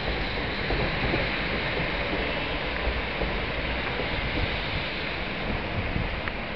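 Steady railway station ambience: a low rumble of distant trains under wind noise on the microphone.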